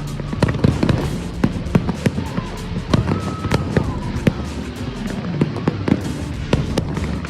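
Fireworks going off in many irregular bangs and crackles, several a second, over music playing throughout.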